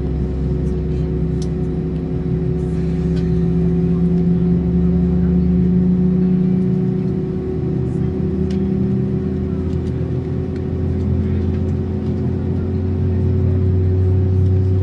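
Steady droning hum inside an Airbus A319 cabin at the stand: a low drone with a few steady tones over it. The low hum shifts, growing deeper and louder about ten seconds in.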